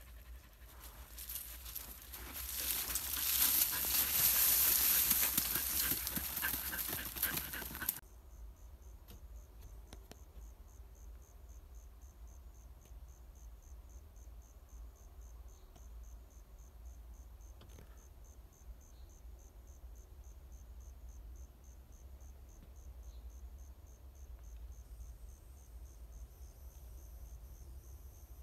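Dogs, one a border collie, digging and scuffling at a burrow in dry leaf litter: a loud rustling, scratching noise that builds over the first few seconds and stops abruptly about eight seconds in. After that, a faint, steady run of high insect chirps, like crickets, at about four a second.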